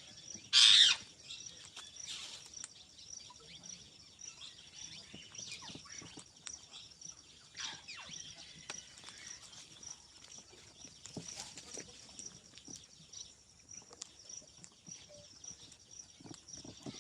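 Pet ringneck parakeet giving one loud, short squawk about half a second in, then softer scattered chirps and calls.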